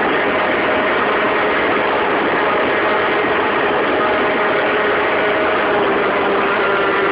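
Modified Peugeot 103 RCX moped with a 50 cc two-stroke geared engine, heard from on board, running hard at speed with a loud, steady buzz.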